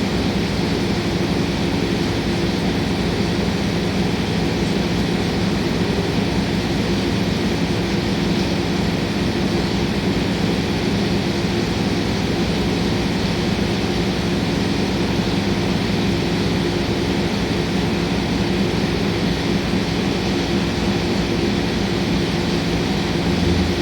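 CNC mill profile-milling Elmax powder steel: the spindle and end mill cutting steadily, a constant hum with a few steady low tones over machining noise.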